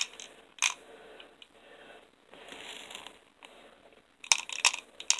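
BBs being loaded into a plastic BB gun's magazine by hand: sharp small clicks and rattles, a couple of single clicks at first and a quick run of clicks near the end, with rustling of handling in between.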